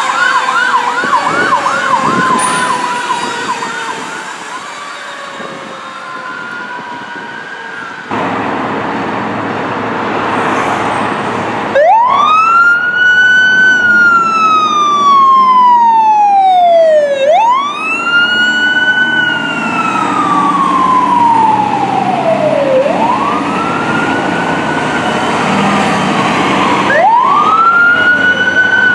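Fire truck sirens. A fast warbling siren fades away over the first few seconds. About eight seconds in, the sound turns abruptly louder, and a siren winds up quickly and slowly falls in pitch, four times over, above the rumble of the truck's engine.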